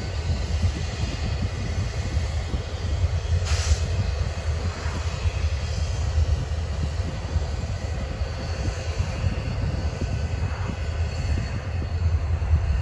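Diesel freight locomotives running as the train approaches slowly, a steady low rumble that grows louder near the end. A brief hiss about three and a half seconds in.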